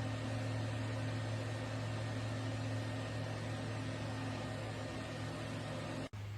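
Small electric fan running steadily: a low hum under an even rush of air, broken by a brief dropout near the end.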